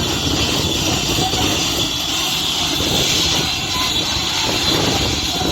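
Heavy diesel earthmoving machinery running steadily under load: a low engine rumble with a bright hiss above it and no separate knocks.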